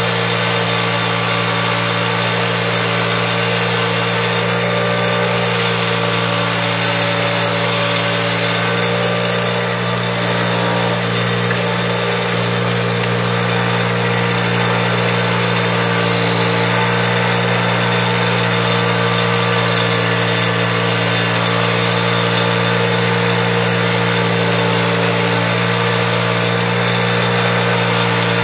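Bench grinder running steadily with a wire wheel, brushing carbon deposits off an engine valve held against it: a constant motor hum under a steady high scratching hiss.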